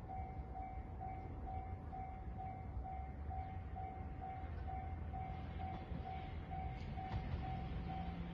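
Japanese railway level-crossing warning bell ringing steadily, an electronic chime pulsing about twice a second: the crossing is closed for an approaching train. A low rumble runs beneath it.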